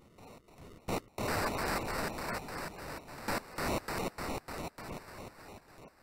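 Stuttering bursts of electronic white noise, chopped on and off in an irregular rhythm. One short burst comes just before a second in, the bursts run on for about four seconds, then thin out and fade.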